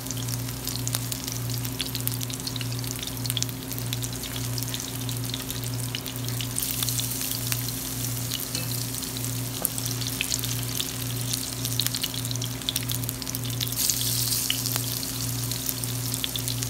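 Sweet potato hash browns frying in hot oil in a pan: a steady crackling sizzle.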